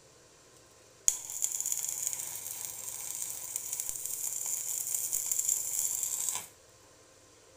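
A steady high hiss that starts sharply about a second in and cuts off abruptly about five seconds later.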